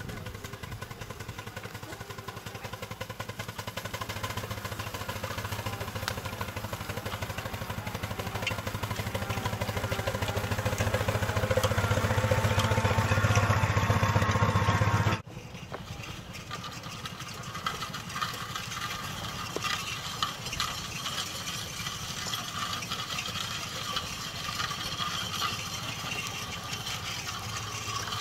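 Scale-model Case steam traction engine running as it is driven, growing steadily louder as it comes close. About halfway through the sound drops suddenly, then the engine runs on at a lower, steady level.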